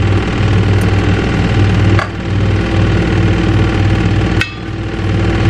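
A steady, loud mechanical hum from a running motor, broken by a short click and dip about two seconds in and again near the end.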